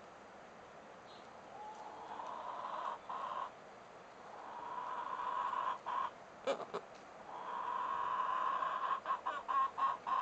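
Chickens calling: three drawn-out, steady calls that swell in loudness, the last the longest, then a quick run of short clucks near the end.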